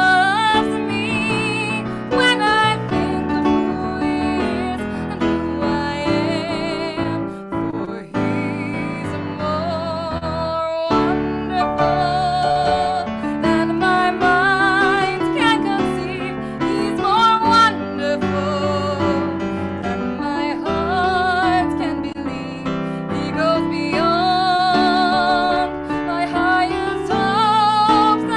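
A woman singing a slow song with strong vibrato, accompanied by piano.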